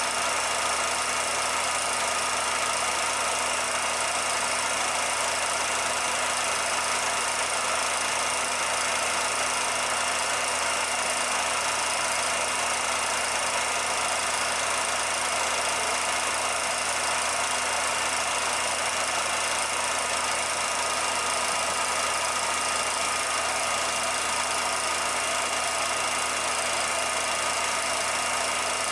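Steady, unchanging mechanical running noise with hiss and a few constant whine tones, with no separate events. The 16mm film is silent, so this is not the steam locomotive.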